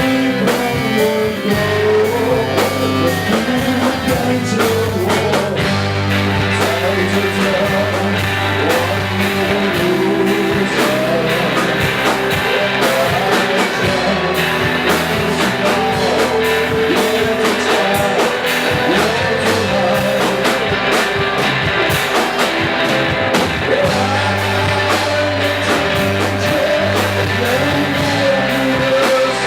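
Rock song playing: a singing voice over electric guitar and a pulsing bass line.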